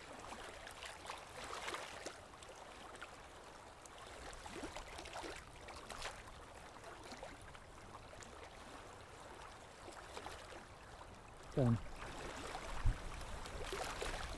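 Quiet rocky shoreline: faint water lapping, with scattered small clicks and knocks from handling a freshly caught mackerel and its tackle. A short falling sound and a single knock come near the end.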